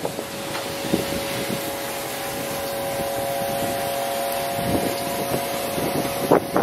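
Outdoor background noise: a low rush of air on the microphone under a steady mechanical hum, with a few held tones, from an unseen machine or engine. The hum fades out near the end.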